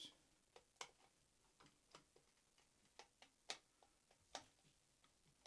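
Faint, irregular light clicks, about seven, the loudest about three and a half seconds in: a screwdriver turning out the screws of a Tamiya TT02's plastic spur gear cover.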